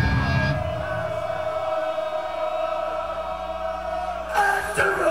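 Live rock band in a breakdown: the drums and guitars drop out just after the start, leaving a held, choir-like drone of steady tones, then the full band comes crashing back in about four seconds in.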